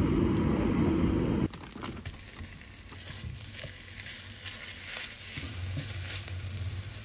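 About a second and a half of loud street traffic noise cuts off suddenly, followed by ground beef and chopped green onions sizzling in oil in a frying pan while a spatula breaks up and stirs the meat, scraping and tapping against the pan.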